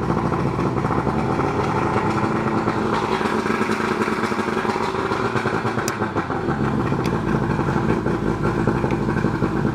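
1973 Johnson 65 HP three-cylinder two-stroke outboard running steadily, just started, on flushing muffs out of the water, with the throttle opened a little.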